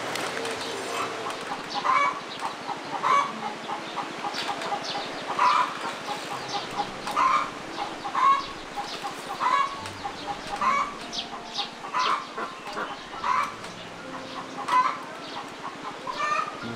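Chickens clucking, a series of short calls repeating roughly once a second.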